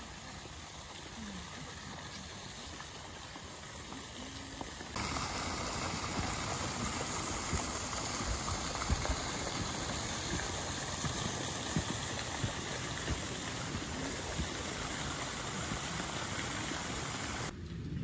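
Steady rushing outdoor noise, water-like, with faint low knocks; it steps up in loudness about five seconds in and changes again just before the end.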